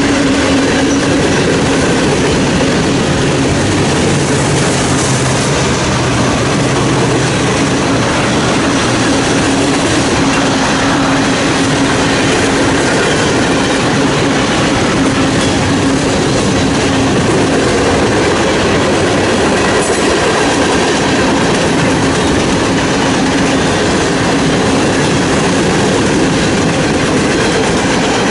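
Freight cars of a long mixed manifest train cruising by, their steel wheels running over the rails in a steady, loud stream of clatter, with a steady tone running underneath.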